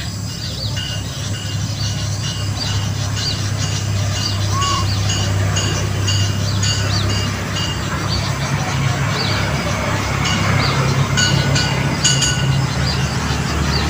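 A steady low rumble that slowly grows louder, with small birds chirping repeatedly over it.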